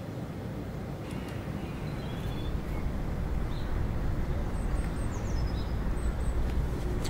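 Outdoor park ambience: a few short, high bird chirps over a low, steady rumble that grows louder about two and a half seconds in.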